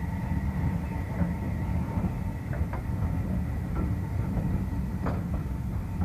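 Passenger coaches of a departing steam-hauled train rolling past: a steady low rumble of wheels on the rails, with a few sharp clicks as the wheels run over the track.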